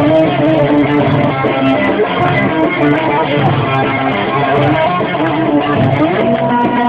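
A live Turkish folk band plays an instrumental passage: a plucked-string melody over a keyboard and a pulsing bass accompaniment.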